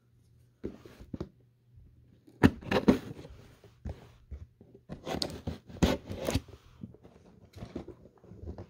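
A cardboard toy box being handled and turned over in the hands: irregular scrapes, rubs and light knocks of fingers and palms on the cardboard, busiest just past the middle.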